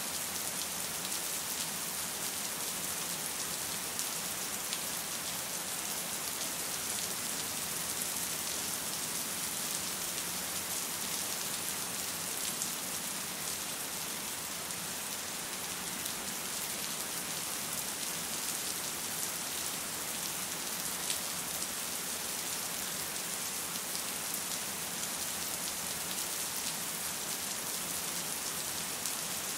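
Steady rain falling: an even, unbroken hiss with scattered single drop ticks.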